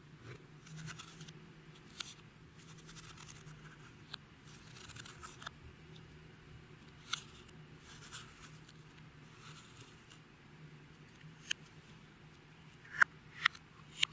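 Hands squishing and stretching clear slime: soft crackly stretching sounds broken by sharp clicking pops of air bubbles, the loudest three coming quickly one after another near the end.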